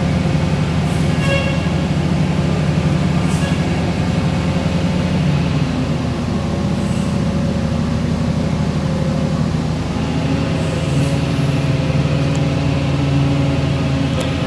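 Industrial mesh belt tempering/annealing furnace running, a steady loud machinery hum whose tone shifts slightly about six and ten seconds in.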